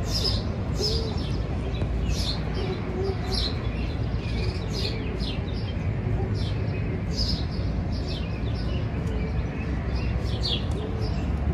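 Wild birds chirping outdoors: many short, quick chirps that fall in pitch, repeated throughout over a steady low background rumble.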